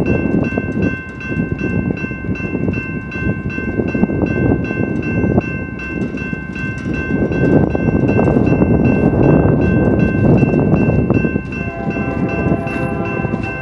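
Fast double-stack intermodal freight train passing at speed with a heavy rumble of wheels on rail. A rapid, steady ringing runs through it, and a horn sounds about two seconds before the end.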